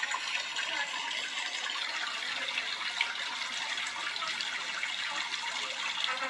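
A steady rushing noise, like running water, from a video's soundtrack played back through the small built-in speakers of an iPhone 6 and an iPhone 5s at once.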